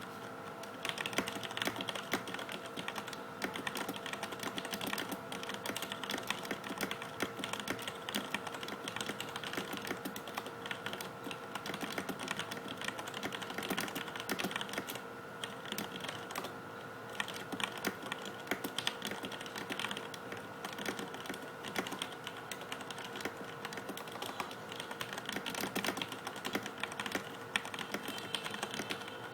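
Continuous fast typing on a CM Storm Quickfire Rapid tenkeyless mechanical keyboard with Cherry MX Black linear switches: a dense, unbroken stream of key clacks. A faint steady hum sits underneath.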